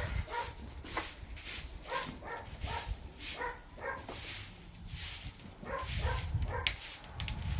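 A dog whimpering and yipping in short, high calls repeated every half second or so, over sharp crackles and pops of firewood burning in an agungi firebox.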